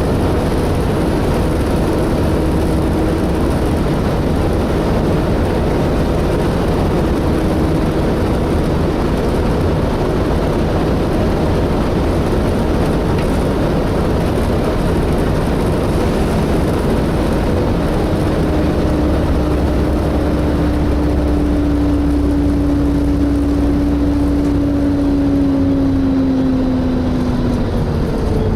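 Volvo B7TL bus's diesel engine and cooling fan heard from inside the bus, a steady hoover-like drone under road noise. The drone grows louder about two-thirds of the way through, then falls in pitch near the end as the bus slows.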